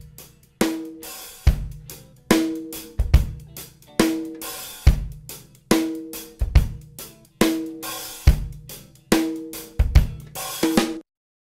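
Drum kit groove of kick, snare, hi-hat and cymbals at a steady slow beat, playing through the OmniTec-67A tube preamp plugin on the drum bus. It stops abruptly near the end.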